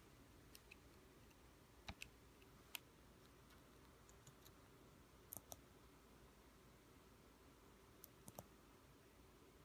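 Near silence with faint, scattered clicks, some in quick pairs, from a finger pressing and handling parts of a breadboard circuit.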